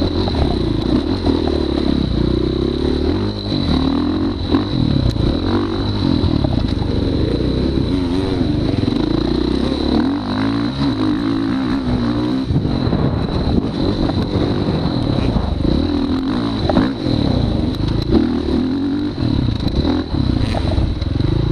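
Off-road motorcycle engine revving up and falling back over and over, as the rider works the throttle around a short track, with clattering and a thin steady high whine throughout.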